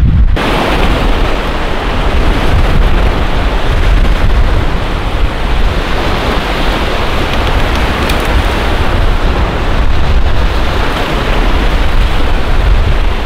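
Heavy rain pouring down: a loud, steady hiss of rain that starts suddenly just after the beginning.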